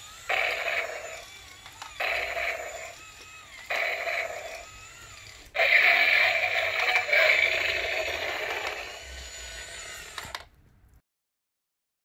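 Tinny electronic sound effects from a battery-powered remote-control walking dinosaur toy's built-in speaker: four short calls repeated roughly every two seconds, then a longer, louder one that cuts off suddenly near the end.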